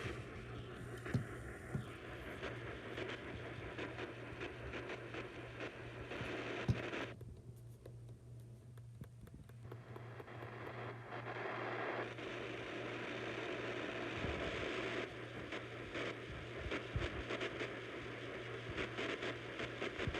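AM radio static between broadcasts: a steady hiss with a low hum underneath and frequent crackles and clicks. The hiss drops away for a few seconds about seven seconds in, then returns.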